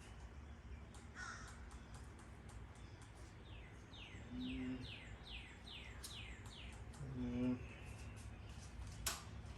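Birds calling faintly: runs of quick falling whistled notes, about four a second, with no starter cranking or engine sound from the motorcycle.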